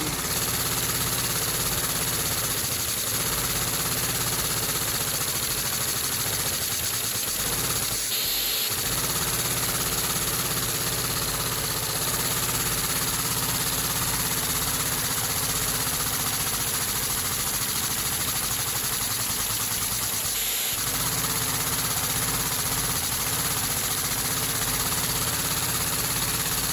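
Three-cylinder Lego vacuum engine running under suction: a steady mechanical drone with hiss, broken twice by a short dip.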